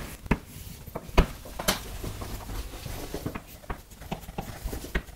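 Scattered clicks and taps of a pen drawing a diagram, with a few light strokes between them; the sharpest tap comes about a second in.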